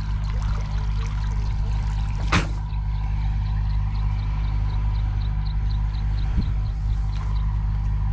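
Water trickling and pouring off a nylon cast net as it is hauled up out of a pond hand over hand, over a steady low hum, with one sharp splash or knock about two seconds in.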